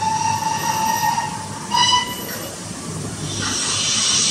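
Model steam locomotive's sound unit blowing its whistle, one long blast and then a short one, followed about three seconds in by a rising steam hiss.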